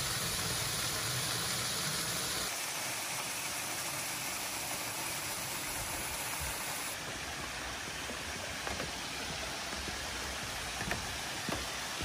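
Steady rush of a small mountain waterfall and stream spilling over rock ledges. Its tone shifts abruptly twice as the view changes, and a few faint clicks come near the end.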